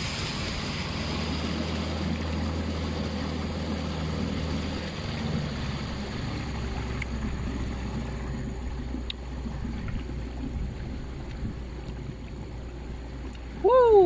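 Outboard boat motor running steadily at low speed, easing slightly about five seconds in, with water washing along the hull. Near the end comes a short, loud call that rises then falls in pitch.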